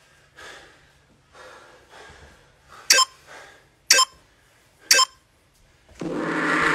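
Heavy breathing between push-up sets, then a workout interval timer beeps three times a second apart as it counts down, and a loud continuous tone starts near the end.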